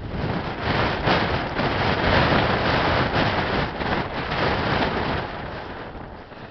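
Blizzard wind gusting and buffeting the microphone, a loud rushing roar that swells and eases, strongest about a second or two in and dying down near the end.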